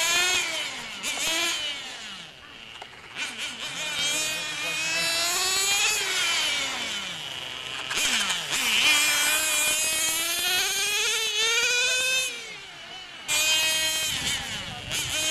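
Radio-controlled model motorcycles racing, their small high-revving motors whining in pitch that climbs and falls over and over as the throttle opens and closes. At times more than one bike is heard at once.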